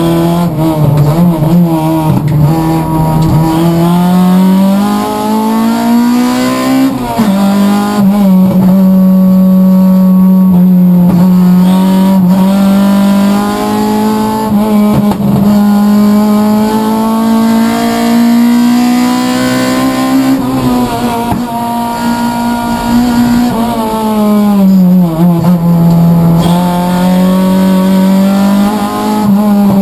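Race-prepared Toyota Corolla's engine running hard at high revs, heard from inside the stripped cockpit. The pitch climbs under acceleration, drops sharply about seven seconds in at an upshift, holds high, then falls over a few seconds past the twenty-second mark and climbs again near the end.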